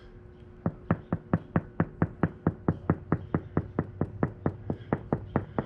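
A finger tapping across a repaired fiberglass boat hull patch, about four even knocks a second. The knock stays solid all the way across, the sign of a thick glass layup, nearly an inch, with no hollow spots.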